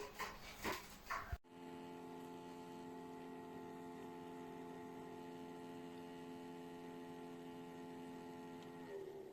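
A few knocks of handling in the first second or so. Then, after an abrupt cut, a faint steady electrical hum made of several even tones from a small USB humidifier running, fading near the end.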